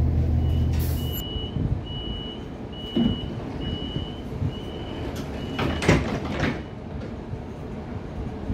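Door-closing warning beeps on an Irish Rail Mk 4 train: a row of about eight short high beeps, roughly one every 0.7 seconds, as the doors shut before departure, with a thud about three seconds in and a louder one about six seconds in. A steady low drone cuts off about a second in.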